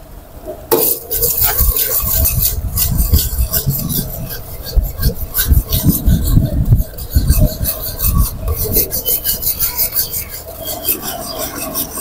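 Metal ladle stirring and scraping around a wok of frothing butter and egg yolk as chopped onion, chillies and curry leaves go in, with a light sizzle. The strokes become fast and even in the second half.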